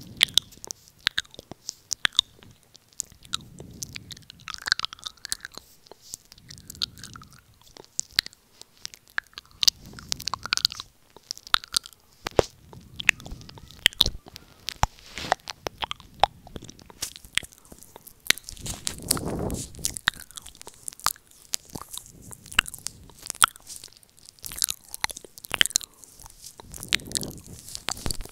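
Close-up wet mouth sounds, ASMR "ear eating" right at a microphone held to the lips: a rapid, irregular run of sharp clicks, smacks and sucks. Soft low swells come every few seconds, the biggest about two-thirds of the way through.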